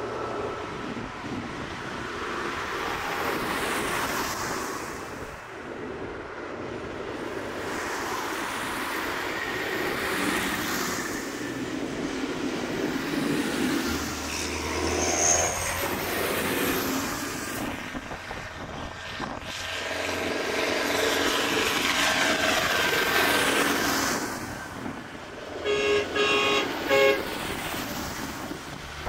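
A procession of farm tractors driving past one after another on a wet road, their diesel engines and tyre noise swelling and fading with each pass. Near the end a horn gives a few short toots.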